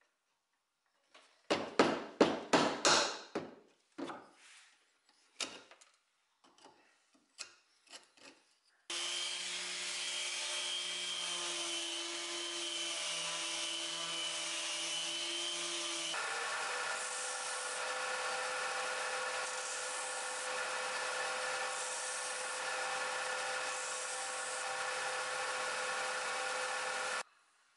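Chisel work cleaning out a mortise in a wooden rail: a quick flurry of sharp blows, then scattered taps. About nine seconds in, a Makita random orbital sander starts sanding the wooden rail and runs steadily. About seven seconds later the sound switches to a stationary disc sander, which runs steadily until it stops near the end.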